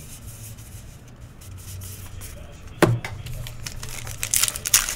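Soft rustle of trading cards being handled, a single thump a little under three seconds in, then the crisp crinkling and tearing of a foil card-pack wrapper being ripped open near the end.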